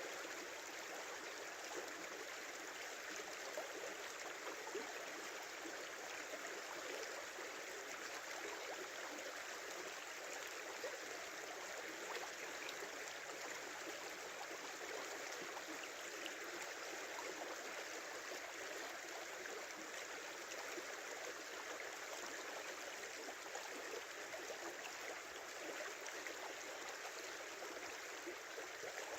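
Small winter river running steadily, a constant babble of flowing water with fine splashing and no deep rumble.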